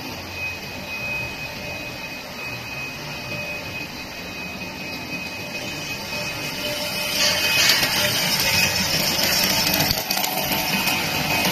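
Air bubble film making machine running: a steady mechanical hum with a thin high whine, and a louder hiss coming in about seven seconds in.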